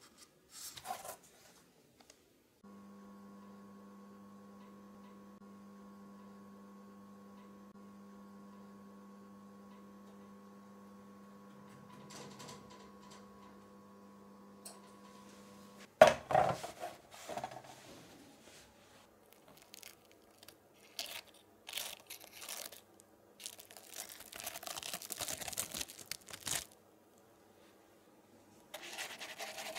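Oven running with a steady hum carrying several fixed tones for about thirteen seconds. The hum cuts off with a sharp knock, the loudest sound, and is followed by scattered paper crinkling and rubbing.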